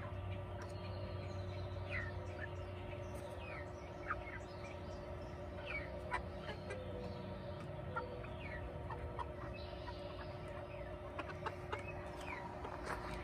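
A small flock of backyard hens clucking and giving short, falling chirping calls at irregular intervals while they forage, over a steady low hum.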